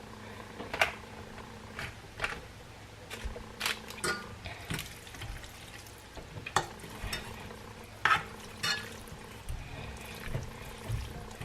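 Instant ramen noodles being stirred in a pot of hot liquid: a utensil clinks and scrapes against the pot at irregular moments, over a low steady hum and wet stirring sounds.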